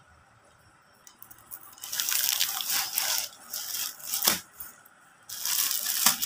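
Crinkling and rustling of the clear plastic packaging around folded suits as they are handled and lifted, starting about two seconds in, pausing briefly near the end, with one sharp click in the middle.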